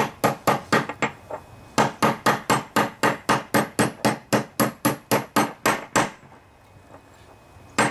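Hammer striking a large socket to drive a new spindle bearing into a John Deere LA145 mower deck's spindle housing. A few quick blows come first, then a short pause, then a steady run of about four blows a second for around four seconds, and one more blow near the end.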